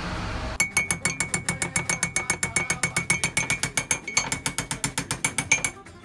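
Metal spoon stirring fast in a ceramic mug of mug-brownie batter, clinking against the mug's sides about eight times a second with a thin ring from the mug. It starts about half a second in and stops just before the end.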